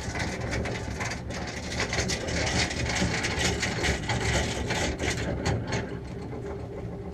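Boat motor running steadily, with small clicks and knocks scattered through it.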